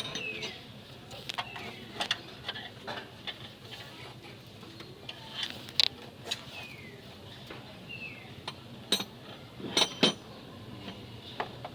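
Scattered metal clinks and knocks of hand tools and bolts during work on the engine mounting bracket, the sharpest about nine and ten seconds in.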